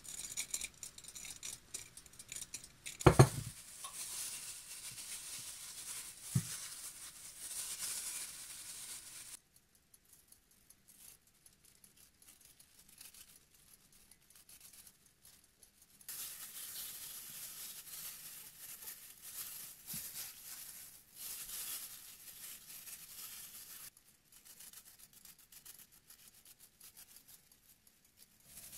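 A metal spoon scooping dry rolled oat flakes and scattering them into a glass baking dish, heard as a rustling scrape in two stretches with a quiet gap between. A sharp clink of spoon on glass comes about three seconds in, and a lighter one a few seconds later.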